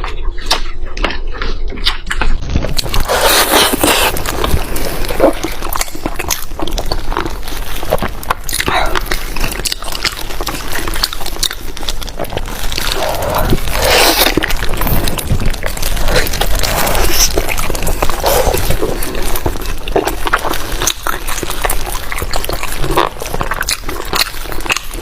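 Close-miked eating sounds: chewing of fatty meat, a dense run of quick smacks and clicks. The sound turns fuller and brighter about three seconds in.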